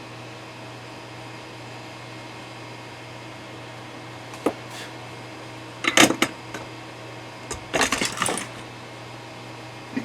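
Small metallic clicks and clatters of tools and parts being handled on a workbench during soldering work: one click about four and a half seconds in, then two short bursts of clatter around six and eight seconds. A steady low hum runs underneath.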